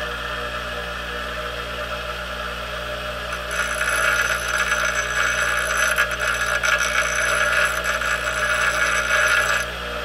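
Delta ShopMaster bench grinder running steadily. About three and a half seconds in, a small engine valve's stem is pressed to the grinding wheel, adding a louder grinding noise with a thin high ring for about six seconds, then the grinder runs on alone. A little is being taken off the stem end to open up the valve clearance.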